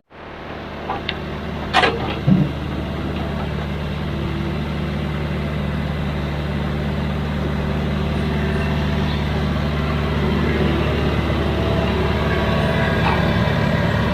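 Heavy construction machine's diesel engine running steadily, with two or three sharp knocks about two seconds in. The engine grows slightly louder through the rest.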